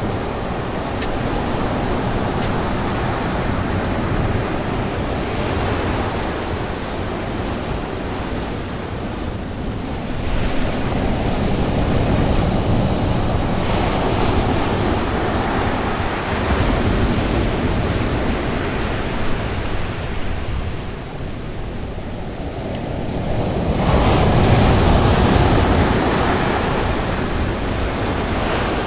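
North Sea surf breaking and washing on the beach, a steady roar of waves that swells louder about halfway through and again near the end.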